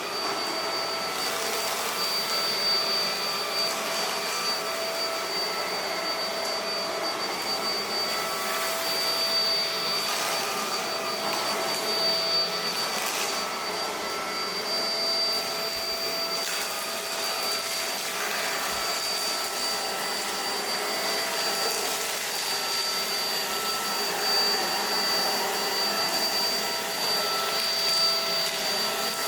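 Roidmi X20 cordless stick vacuum running on its lowest suction setting: a steady high motor whine over a rushing airflow hiss, swelling slightly now and then.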